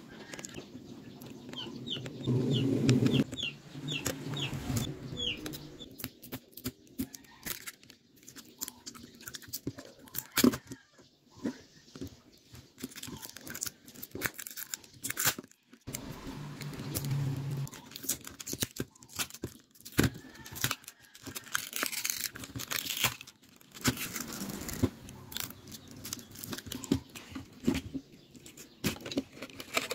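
Small clicks and taps of a smartphone being taken apart by hand: a small screwdriver working on the mainboard cover screws, then plastic and metal parts being lifted and handled. A run of short, high chirping notes sounds about two seconds in.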